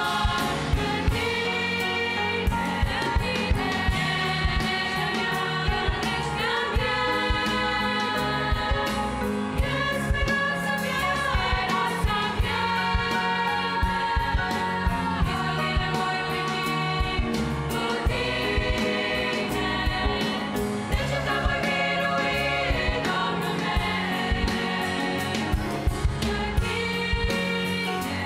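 Girls' choir singing a hymn in Romanian, with piano and a drum kit keeping a steady beat.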